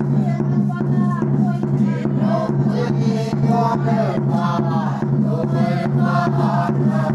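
A congregation singing a hymn together, with a steady low hum underneath.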